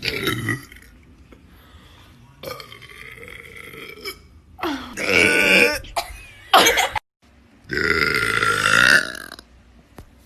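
A run of about five deliberate human burps, one after another, the longest drawn out for about a second and a half.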